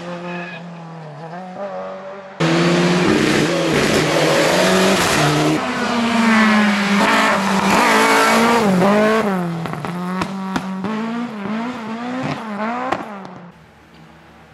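Lada rally cars' four-cylinder engines at full throttle. One car pulls away and fades. About two seconds in, a much louder one takes over abruptly and passes close by, its revs rising and falling again and again through gear changes and lifts. It fades away near the end.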